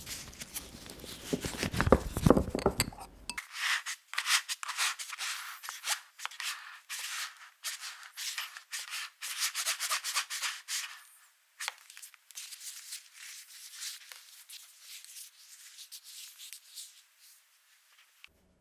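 Thick, chilled madeleine batter being stirred in a mixing bowl, a run of irregular rubbing and scraping strokes. The strokes are fuller-sounding for the first three seconds or so and fade near the end.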